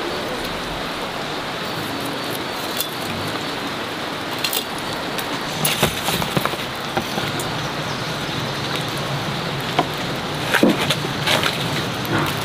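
A steady rushing hiss with scattered light clicks and knocks, more of them in the second half, as smoked sausages are handled in a woven bamboo basket beside a smouldering wood fire.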